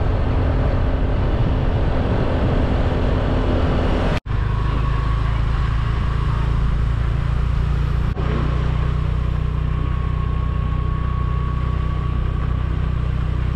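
Motor vehicle engine running with wind noise rushing on the microphone while riding along a road. The sound breaks off abruptly twice, about four and about eight seconds in.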